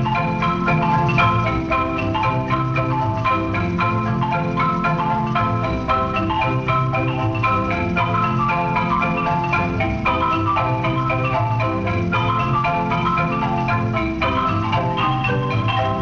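Marimba ensemble music: several marimbas played with mallets in quick, many-note runs over a steady low accompaniment.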